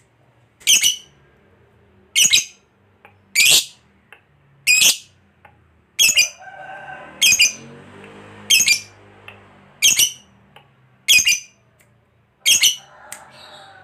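Lovebird giving a series of loud, shrill squawking calls, about ten in a row, one every second and a bit. Softer chattering runs between them around the middle and again near the end.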